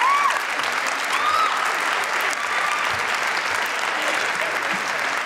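Large audience applauding steadily, with a few shouts and whoops rising over the clapping in the first second or so.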